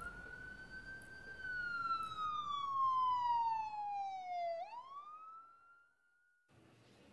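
Emergency vehicle siren wailing: one long tone that rises, slowly falls, then sweeps up again before cutting off suddenly.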